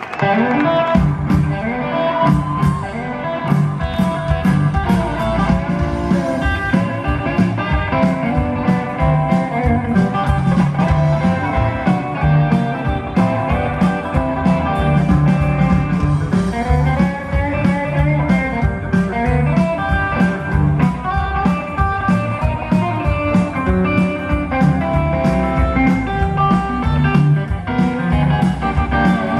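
Live rockabilly trio playing: electric guitar lead over upright double bass and a standing drum kit.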